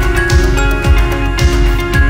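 Background music with a steady beat, about two low drum hits a second under sustained pitched notes.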